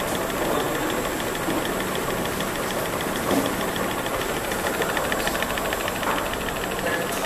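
Mini slitting machine running, slitting thermal transfer ribbon and rewinding it onto paper cores: a steady mechanical hum with a fast, even ticking and a thin high whine. One sharper knock comes about halfway through.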